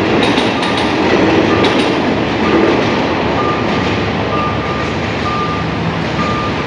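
Last carriages of a State Railway of Thailand express train passing, wheels clacking over the rail joints, the rumble fading over the first couple of seconds. Under it, a vehicle's reversing alarm beeps about once a second and stands out more as the train noise dies away, over steady road-traffic noise.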